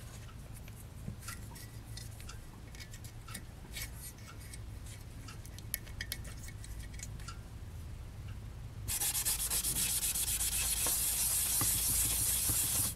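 Light clicks and taps of small brass fittings being handled and screwed together, then, about nine seconds in, a loud, fast rubbing as a dished brass part is rubbed by hand with quick regular strokes, which stops abruptly near the end.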